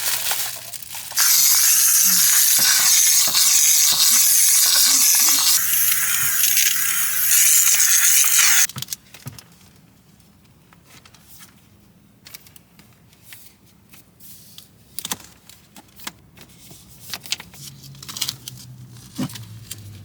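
Handheld steam cleaner blowing a jet of steam: a loud, steady hiss that starts about a second in and cuts off abruptly after about seven and a half seconds. Light clicks and knocks follow, with a faint low hum near the end.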